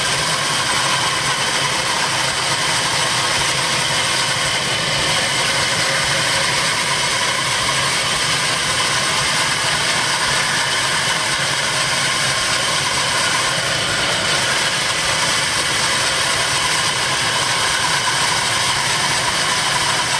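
A belt-driven circular saw ripping a long wooden plank, driven by an old Ruston Hornsby diesel engine. Engine and saw run with a steady, unbroken whine that holds its pitch.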